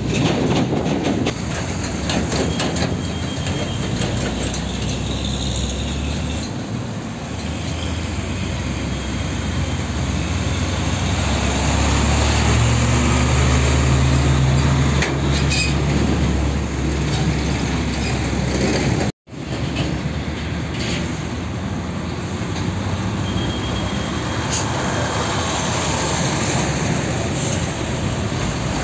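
Heavy diesel trucks driving slowly past close by, a continuous low engine rumble that builds to its loudest about halfway through as a truck hauling a container passes, then settles. The sound cuts out for an instant about two-thirds of the way through.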